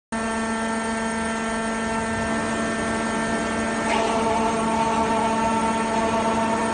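Three-boom tunnel drilling jumbo's machinery running with a steady, even droning hum, a little louder about four seconds in.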